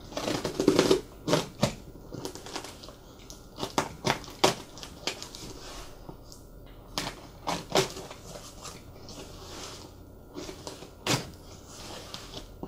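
Cardboard parcel being opened with a snap-off utility knife: the blade slitting packing tape and cardboard, tape crackling as it peels away, and the box being handled, in irregular scrapes and crackles.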